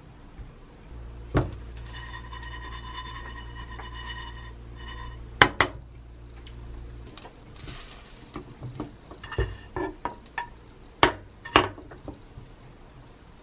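Plastic spatulas knocking and scraping against a nonstick frying pan as cooked rice is spread and pressed flat to fry into a rice crust, with a few sharp knocks near the end. A low hum and a thin steady tone run under the first half.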